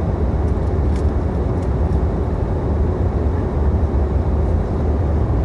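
Passenger airplane cabin in flight: a steady, even rumble of engines and airflow, heaviest in the low end, with a few faint ticks in the first second and a half.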